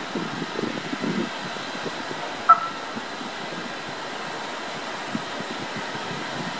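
Steady outdoor rumble and hiss beside the railway, with a single short, sharp chirp about two and a half seconds in.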